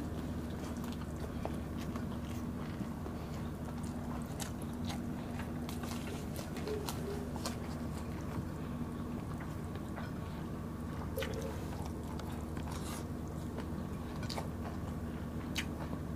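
Chewing and crunching of people eating by hand, with many short, crisp clicks scattered throughout, over a steady low hum.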